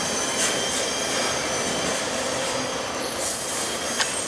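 Tail end of a BNSF stack freight train rolling past and away: steady rolling noise with a thin, high wheel squeal. About three seconds in, a very high-pitched whine comes in.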